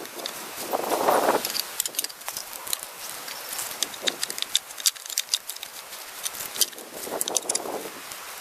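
Split bamboo halves knocking and clicking against one another as they are laid on the ground by hand: a scatter of short, sharp clacks with brief rustling in between.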